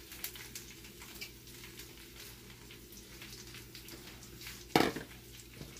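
Fresh spinach and greens frying gently in a hot pan of olive oil: a faint crackle over a steady low hum, with one loud sharp knock near the end.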